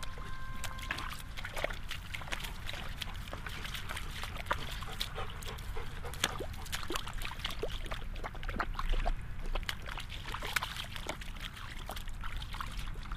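Footsteps squelching and splashing through wet mud and puddles, many irregular wet clicks and slaps, over a steady low rumble.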